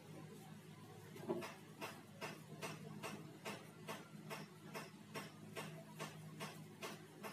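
Plastic spice shaker shaken rhythmically over a plate, clicking about two or three times a second from about a second in, over a faint steady low hum.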